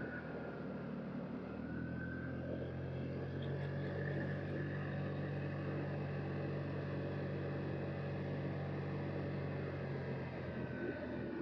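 2007 Vespa LXV 150 scooter's 150cc engine running at a steady cruising pace while riding, heard from the rider's position.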